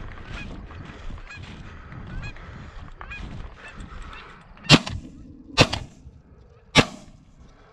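Geese honking again and again, then three shotgun shots about a second apart from a Stoeger M3500 semi-automatic shotgun, fired to finish a crippled goose on the ground.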